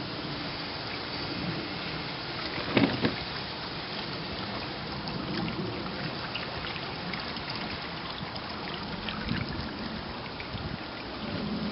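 Steady outdoor background hiss picked up by the camera's own microphone, with scattered faint ticks and one brief bump about three seconds in; low wind rumble on the microphone starts near the end.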